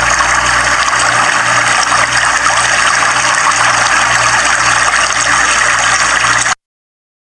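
Swollen, muddy river floodwater rushing over and around a row of concrete stepping blocks: a loud, steady rush that cuts off abruptly near the end.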